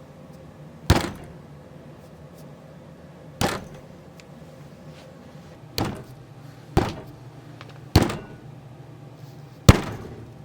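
Six sharp knocks or clacks, spaced irregularly, each dying away quickly over a faint steady background hum.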